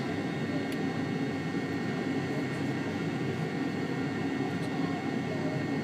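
Steady cabin drone of an MD-82's rear-mounted Pratt & Whitney JT8D turbofans running at idle, heard from a seat near the tail: an even rumble with a layer of steady high whining tones above it.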